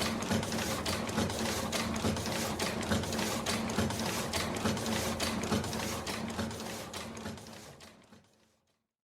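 Industrial printer running: rapid clattering strikes over a steady mechanical hum, fading out over the last couple of seconds and stopping just before the end.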